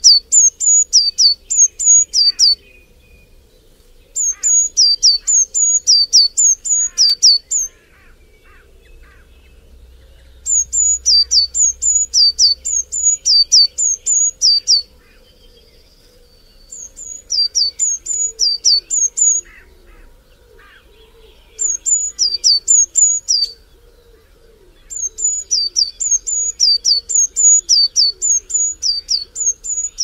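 A small songbird singing: loud, high-pitched notes that each drop in pitch, repeated rapidly in phrases of two to four seconds with pauses of one to three seconds between, six phrases in all. Fainter calls of other birds lie beneath.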